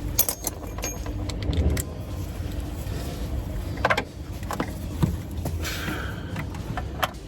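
Scattered metallic clinks and taps of hand tools and bolts while a starter motor is bolted in place, over a steady low rumble.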